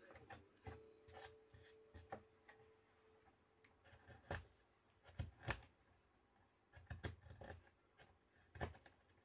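Small carving knife paring and scraping a small piece of wood by hand: a run of short, irregular cuts and scrapes, a few of them sharper, about a dozen over the stretch.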